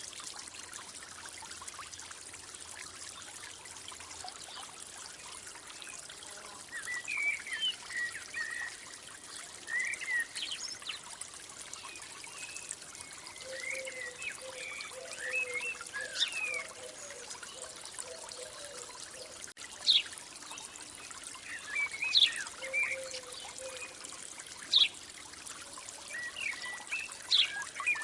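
Water trickling steadily, like a small stream, with birds chirping in short bursts over it, some short series of lower repeated calls among them.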